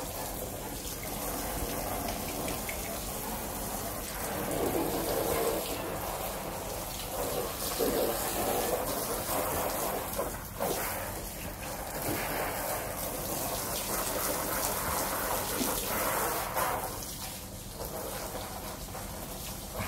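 Water running and splashing into an inflatable paddling pool as it is filled, swelling and easing in strength.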